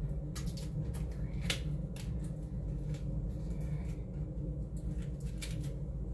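Plastic wrapping crinkling and tearing as a new box of jumbo playing cards is unwrapped: a handful of sharp crackles, a cluster near the start and another near the end, over a steady low hum.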